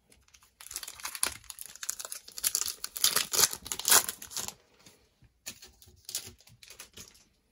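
A cello-wrapped trading card pack crinkling and crackling as it is torn open, loudest a few seconds in, then softer crinkling.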